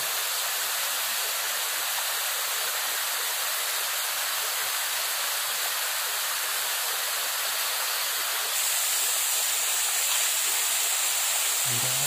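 Shallow stream of water running over rock: a steady rushing hiss that grows a little louder and brighter about eight seconds in.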